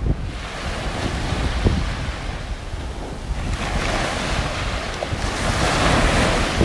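Sea surf washing, with wind rumbling on the microphone; a wave's hiss swells about halfway through.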